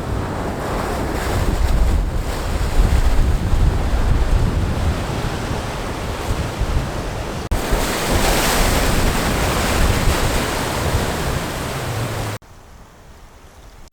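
Sea waves washing over the shore with wind buffeting the microphone in a low rumble. The sound breaks off briefly about halfway through, then drops suddenly to a much quieter level near the end.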